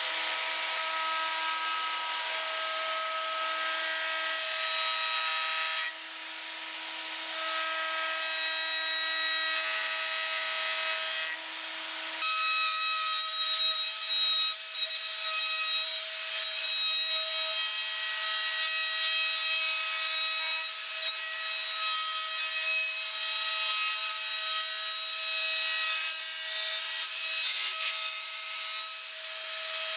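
Table-mounted router running with a steady whine while pine is fed past a bearing-guided profile bit, the cutting adding a rough, uneven noise. The whine's pitch pattern shifts abruptly about twelve seconds in.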